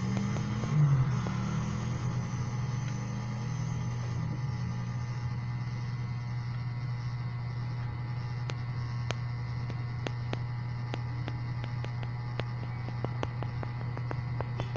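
Computer keyboard keys clicking as someone types, sparse at first and starting about halfway in, then more frequent. A steady low hum runs underneath, with a louder low rumble in the first couple of seconds.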